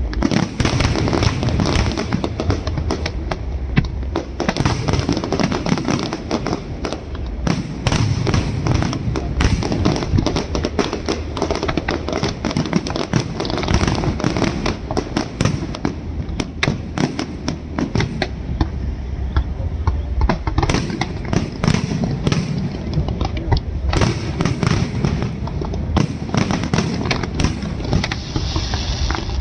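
Firecrackers and fireworks going off in a dense, unbroken string of bangs and crackles, many a second.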